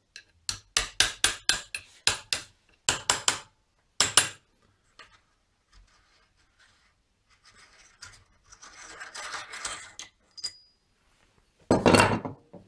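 Steel pin tool clicking and scraping against the notched cover of a Maillard freewheel clamped in a vise, as the cover is worked loose clockwise. There is a run of sharp clicks in the first four seconds, then a stretch of scraping, and a louder clatter near the end.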